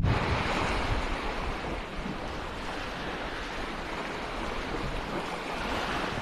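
Steady rushing noise of sea waves and wind, easing slightly over the first couple of seconds and then holding even.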